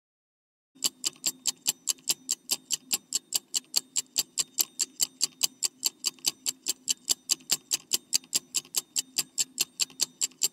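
Ticking countdown-timer sound effect, quick and evenly spaced at about five ticks a second over a faint low hum, starting about a second in.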